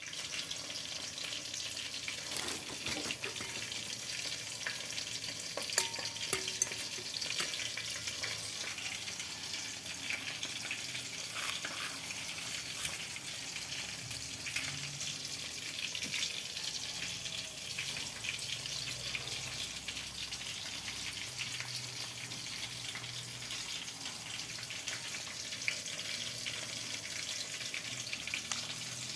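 Squid rings frying in hot oil: a steady sizzle with scattered crackling pops and an occasional sharper click.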